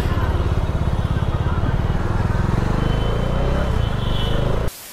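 Kawasaki Z H2 SE's supercharged inline-four running at low revs in slow city traffic, a steady low pulsing. It cuts off abruptly near the end, leaving a low hiss.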